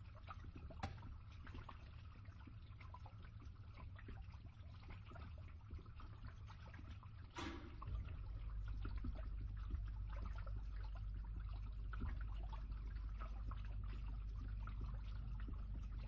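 Water draining through a pipe: a steady low rush with trickling and dripping over it. There is one brief louder gurgle about seven seconds in, after which the low rush grows louder.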